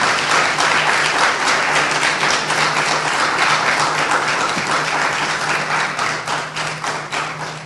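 An audience applauding: many hands clapping in a dense, even patter that thins slightly near the end.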